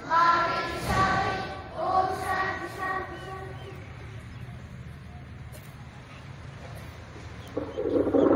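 Large group of schoolchildren singing a Hindi assembly prayer in unison, with long held notes, fading out about three seconds in. Near the end, a loud burst of many voices.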